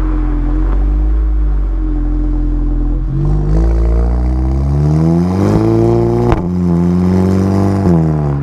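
Mk7 VW Golf GTI's turbocharged 2.0-litre four-cylinder through a VW Racing Cup Edition exhaust. It cruises with a steady low drone, then accelerates from about three seconds in with a climbing engine note. There is a single sharp crack about six seconds in, and the note falls back near the end.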